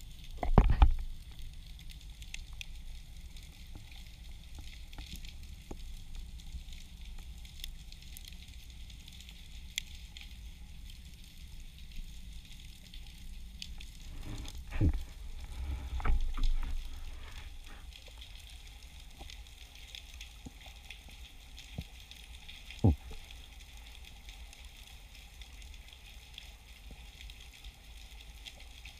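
Underwater ambient crackle, a steady fine fizzing of many tiny clicks typical of snapping shrimp on a rocky reef, heard through an underwater camera. A few dull low knocks stand out: a loud one about a second in, two around halfway, and one sharper one about three-quarters through.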